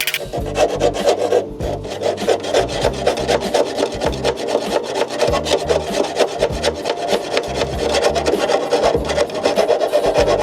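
Metal file rasping back and forth over the rusted sheet steel of a Datsun Z's inner hood hinge panel, a continuous run of scraping strokes.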